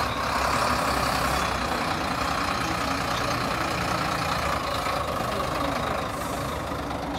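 Sinotruk Howo tractor unit's diesel engine running steadily as the truck drives slowly past, easing slightly near the end.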